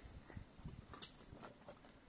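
Faint footsteps and scuffing on stony ground, with a single sharp click about a second in.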